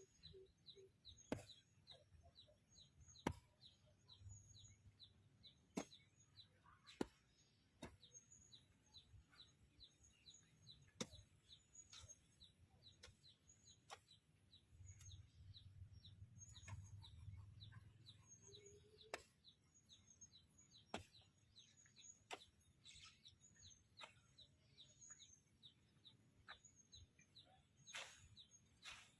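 Faint small-bird chirping: short, high, falling chirps repeated about three times a second without a break, with scattered sharp clicks.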